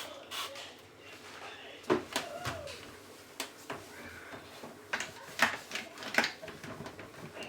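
Plastic knocks and clicks as a dishwasher filter is handled and fitted back into place, a scattered run of short sharp strikes, most of them about two seconds in and again in the second half.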